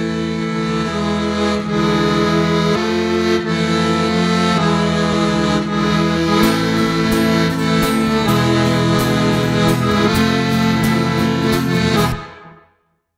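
Instrumental folk music intro of sustained held chords that change about once a second. A light clicking beat joins about halfway, and the music fades out near the end.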